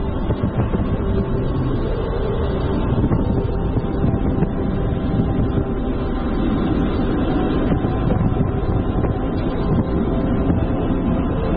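Steady wind rumble on a bike-mounted action camera's microphone while cycling, mixed with tyre and road noise; it runs evenly with no breaks.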